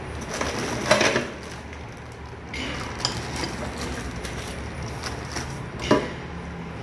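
Clatter and rustling as items are handled, with sharp knocks about a second in and again near the end.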